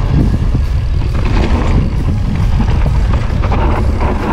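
Mountain bike rolling over a loose stony dirt trail: a steady low rumble of wind buffeting the rider's action-camera microphone, with tyres crunching on gravel and the bike rattling over the stones.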